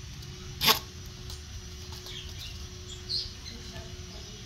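A single sharp click a little under a second in, then a few faint, high, brief chirps over a steady low hum.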